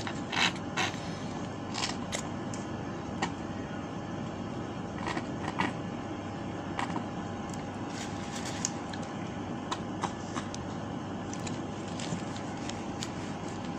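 Scattered short clicks and taps from sucking on a straw clogged with hard ice cream, over a steady low background hum with a faint steady tone.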